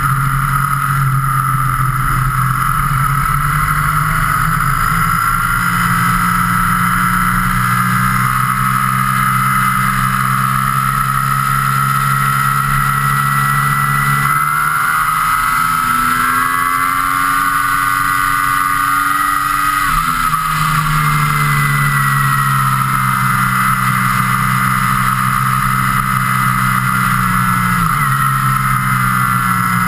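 Road vehicle engine running steadily at cruising speed, with road and wind noise. Its note shifts in pitch about halfway through and returns to the earlier note some six seconds later.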